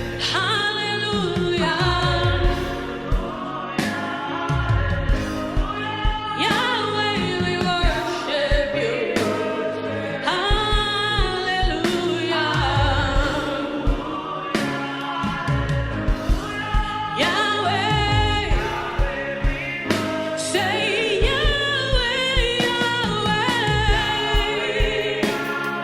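Live gospel praise music: voices singing over an accompanying band with a steady beat.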